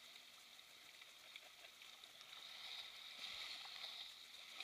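Faint sea water lapping and splashing around a kayak's bow, a little louder in the second half, with a few small ticks.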